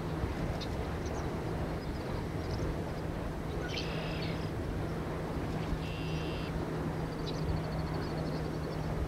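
Steady outdoor wind noise with a constant low hum under it, and a few short high bird chirps over it, two of them about four and six seconds in, then a quick trill near the end.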